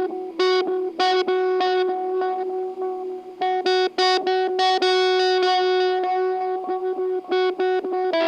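Electric guitar through effects playing an instrumental passage: a held note under short, choppy repeated stabs.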